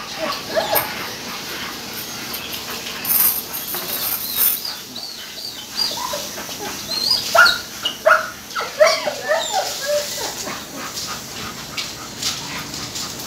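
Dogs whimpering and yelping in many short high calls, thickest about seven to ten seconds in, while they are held together for mating.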